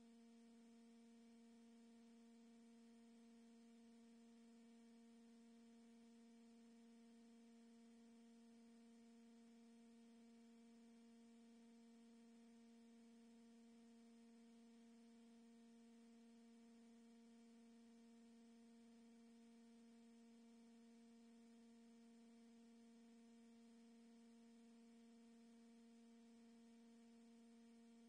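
Near silence, with only a faint, steady low hum carrying a few higher overtones.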